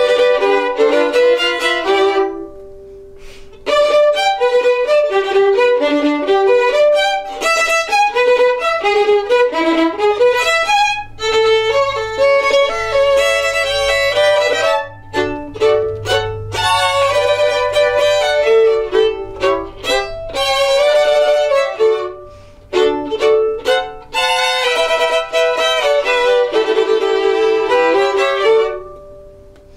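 Three violins playing an instrumental piece together, in phrases with a few short pauses between them.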